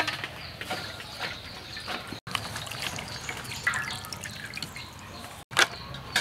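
Water splashing and dripping as a bunch of spring onions is swished in a steel bowl of water and lifted out. A sharp knock a little before the end is the loudest sound.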